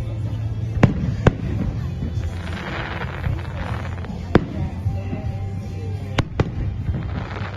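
Aerial fireworks going off: a handful of sharp bangs, with a spell of crackling sparks from about two to four seconds in.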